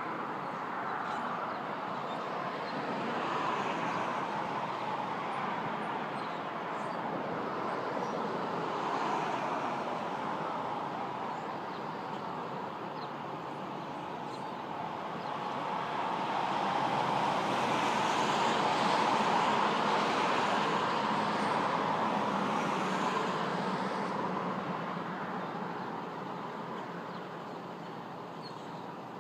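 Road traffic going past: a rushing noise that swells and fades as vehicles pass, with the longest, loudest pass from about the middle to near the end.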